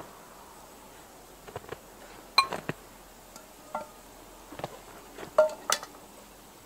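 Steel lid of a camp cooking pot lifted off and handled, giving several sharp metallic clinks with a brief ring, the loudest about two and a half seconds in and again near the end.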